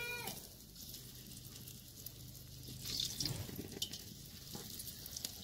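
Bolani frying in shallow oil in an aluminium pot, a faint steady sizzle. About three seconds in, one is turned over with a fork: a louder burst of sizzling with a few light clicks of the fork against the pot.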